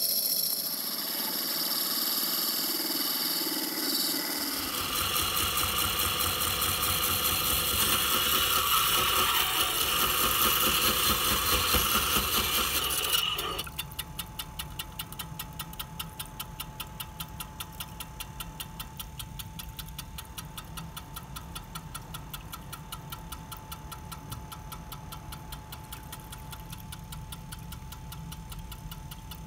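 Bench-top cut-off saw cutting through a heavy square steel nut: a loud, shrill grinding whine. About halfway through it drops to a quieter steady running with a fast, even ticking.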